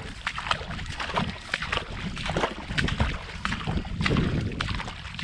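Footsteps wading through shallow, muddy paddy water, a run of irregular splashes and sloshes, with wind rumbling on the microphone.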